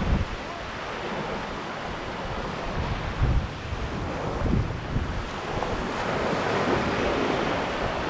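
Small ocean waves breaking and washing up a sandy, rocky beach: a steady surf hiss that swells toward the end as a wave runs in. Wind buffets the microphone with a few short low rumbles.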